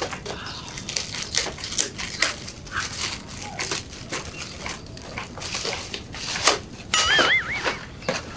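Gift-wrap paper crinkling and tearing as a present is unwrapped by hand, in irregular rustling bursts, with the box inside being handled.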